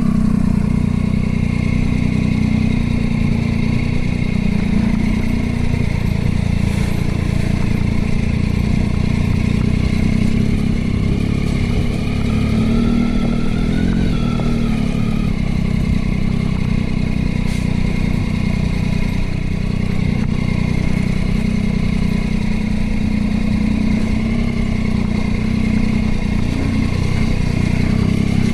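Motorcycle engine running while riding along at a fairly steady pace, with a heavy low rumble. Its pitch rises a little about halfway through, then settles back.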